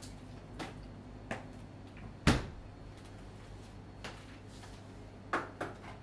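A refrigerator door shutting with one heavy thud a little over two seconds in, among a few light clicks and knocks of things being handled.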